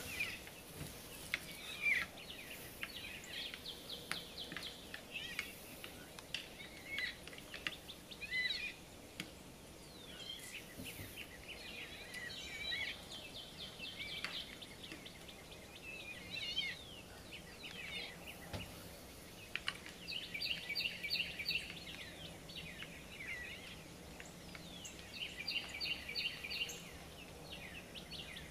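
Several songbirds chirping and calling, with rapid trills at intervals, over a faint steady background noise.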